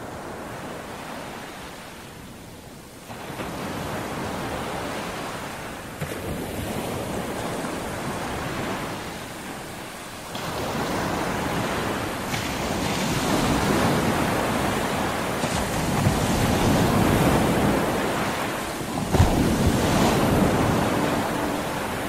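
Sea waves washing onto the shore, the surf swelling and easing several times and growing louder, with wind on the microphone.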